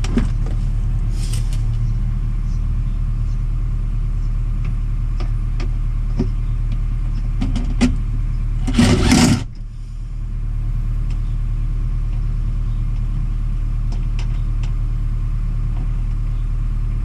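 A steady low hum with scattered light clicks of a bolt being worked by hand; about nine seconds in, a power tool runs in one short burst of under a second, driving in a door latch bolt.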